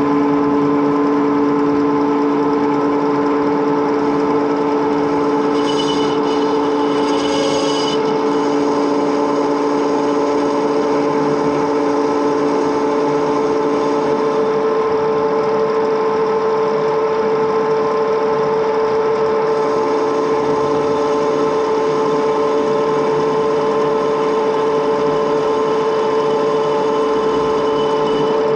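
Edgwick metal lathe running under power, a steady gear whine from the headstock. A lower tone drops out about halfway through, and a brief high-pitched sound comes about six seconds in.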